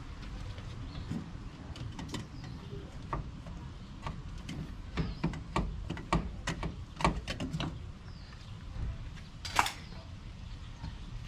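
Light metal clicks and knocks from a band-type oil filter wrench and the spin-on oil filter as the filter is loosened on an air-cooled Porsche 911SC engine, a quick run of them in the middle, then one louder clatter near the end.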